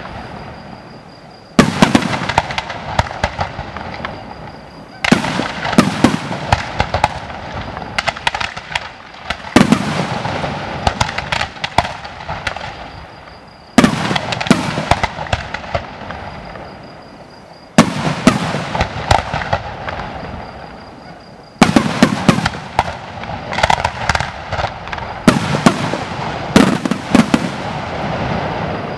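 Fireworks display: aerial shells bursting in a steady volley. A big bang comes about every four seconds, each followed by a spray of sharp crackling pops that dies away.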